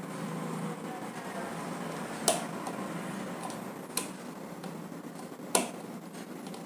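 Three sharp clicks about a second and a half apart as hands handle the wires and terminal connections on an exhaust fan motor.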